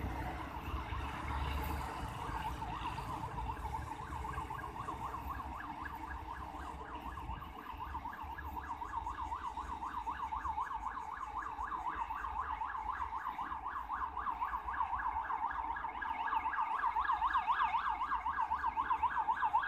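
An electronic siren warbling fast, its pitch sweeping up and down about four to five times a second and growing louder over the last few seconds, over a low rumble that dies away in the first seconds.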